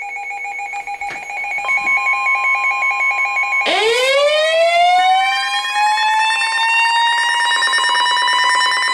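Emergency alert tones: steady and pulsing electronic tones, joined by a second steady tone about two seconds in. Then a siren winds up from a low pitch and settles into a held high wail.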